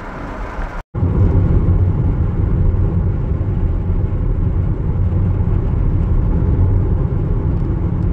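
Steady low road rumble of a car driving at highway speed, heard from inside the cabin. The sound cuts out for an instant about a second in, then the rumble continues unchanged.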